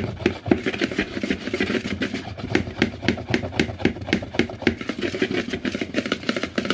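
Wire whisk beating thick pancake batter by hand in a plastic mixing bowl: quick, regular clicks of the wires against the bowl, several a second, with the wet slap of the batter.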